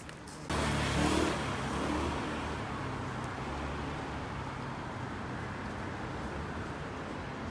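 Steady vehicle noise, a low engine hum with road rumble, that starts suddenly about half a second in.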